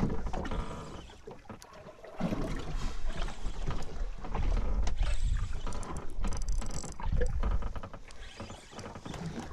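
Fishing reel being wound in against a fish on the line, a mechanical clicking and whirring over a low rumble.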